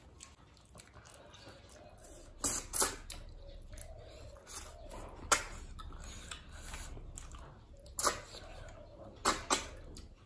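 Close-miked mouth sounds of eating river snails and rice by hand: about half a dozen short, sharp sucks and lip smacks, two of them close together near the end, with soft chewing between.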